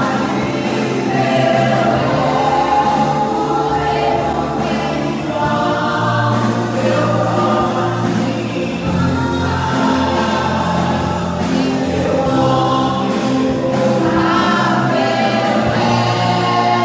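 Christian worship song sung by a group of voices over band accompaniment, steady and loud.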